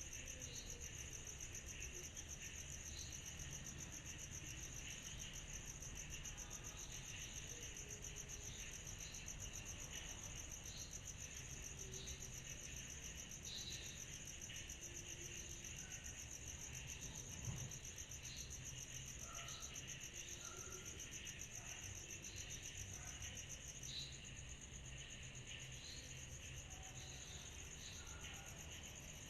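A dense, steady chorus of night insects trilling high and fast, with scattered short chirps over it and a low background rumble. A brief knock stands out about two-thirds of the way through.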